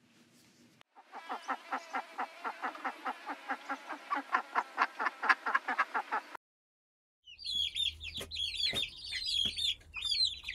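Hens clucking in a steady quick run of about five clucks a second. After a short pause, chicks start peeping in high, rapid chirps.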